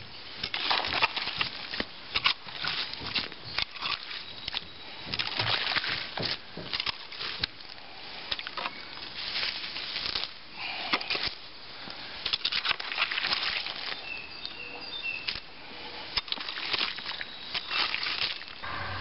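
Garden hoe chopping and scraping through wet, waterlogged soil, digging out a runoff trench: a run of irregular scrapes and squelchy crunches.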